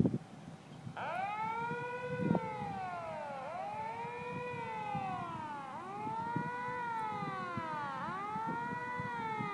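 Siren wailing, its pitch sweeping up and sliding slowly back down in cycles of about two seconds; it starts about a second in. A sharp knock comes at the start and another about two seconds in.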